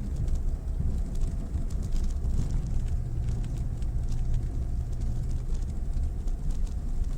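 Mitsubishi Pajero Mini's small engine running as it drives slowly over a rough gravel track, a steady low rumble with scattered crackling ticks from stones under the tyres.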